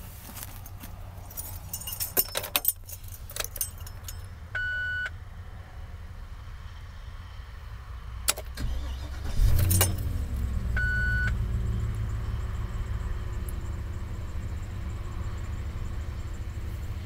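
Keys jangle in the ignition of a 2005 Chevrolet Silverado 2500HD and a short dashboard chime beeps. About eight seconds in, the starter cranks briefly and the engine catches, then settles into a steady idle, with a second chime just after it starts.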